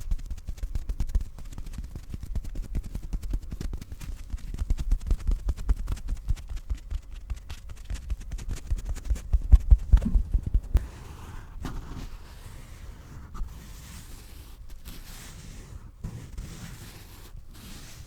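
Fingers rapidly tapping and patting a pillow close to the microphone, a quick run of soft low thuds that grows louder, then stops about eleven seconds in and gives way to quieter rubbing and rustling of the pillow's fabric.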